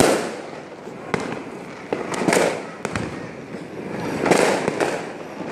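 Fireworks going off: a series of sharp bangs about a second apart, with bursts of crackling hiss about two seconds in and again about four seconds in.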